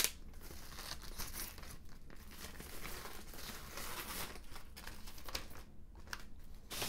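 Thin plastic wrapper crinkling and rustling in irregular bursts as it is peeled back off a speaker by hand, with a brief lull about six seconds in.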